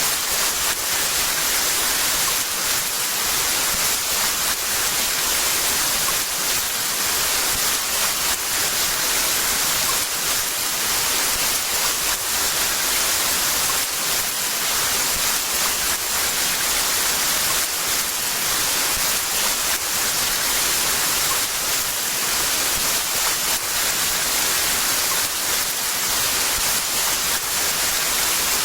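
Heavy rain falling steadily: an even, dense hiss with fine pattering and no breaks.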